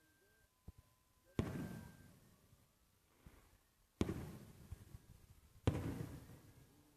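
Salute fireworks bursting at a distance: three sharp booms, each fading away in a long rolling echo.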